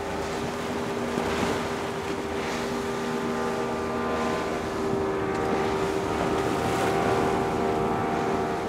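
Outboard engine of a Robalo 2220 center-console boat running past at speed. It is a steady drone that grows louder toward about seven seconds in and then eases, over the wash of water and waves.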